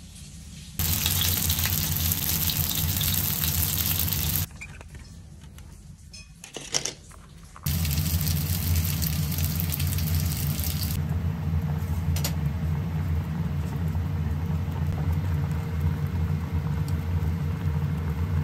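Rice cakes boiling in a pot of water on a gas stove: a steady bubbling hiss over a low hum. It stops for about three seconds after the first few seconds, with a few clicks and knocks in the gap, then carries on.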